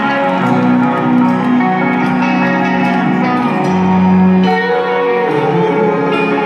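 Live rock band playing through a stadium PA system, with an electric guitar leading in long held notes, heard from far back in the stands.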